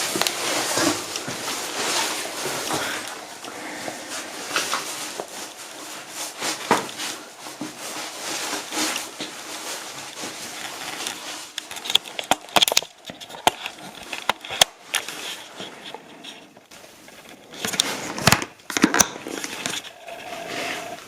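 Irregular scraping and rustling with scattered sharp clicks, clustered in the second half.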